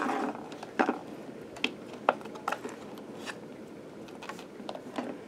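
Hands handling a small plastic doll and its plastic ball case: a short rustle at the start, then a few light clicks and taps spread over the next few seconds.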